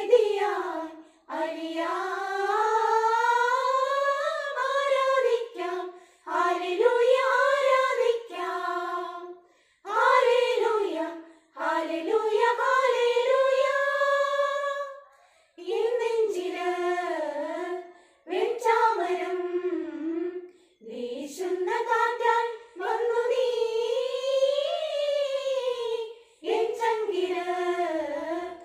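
Women's group singing a Malayalam Christmas carol together on one melody, unaccompanied, in phrases a second or a few seconds long with short breath pauses between them.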